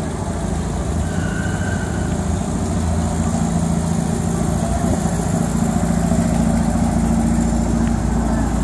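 Classic cars' engines idling in a stopped line, a steady low hum that grows slightly louder about three seconds in.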